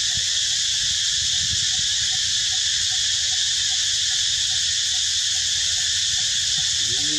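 A steady, high-pitched insect chorus of cicadas or crickets buzzing without a break, over a low rumble.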